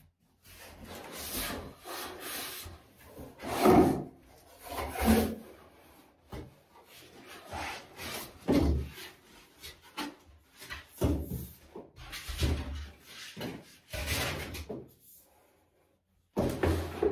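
Cardboard box being opened and unpacked by hand: card flaps and packing inserts rubbing, scraping and rustling, with a few louder bumps as the long pole outboard is lifted out.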